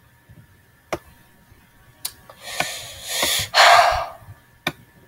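A person breathing hard close to the microphone, two loud breathy rushes back to back from about two and a half to four seconds in, like a long sigh. A few single sharp clicks come about one, two and nearly five seconds in.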